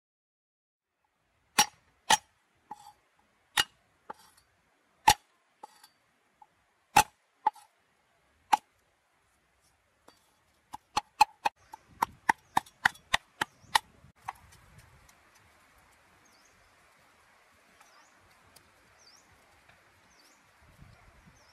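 Sharp, ringing knocks of hard objects striking, a dozen scattered over the first several seconds, then a quick run of about a dozen more at three or four a second. After the knocks stop, a steady hiss sets in with short bird chirps repeating about once a second.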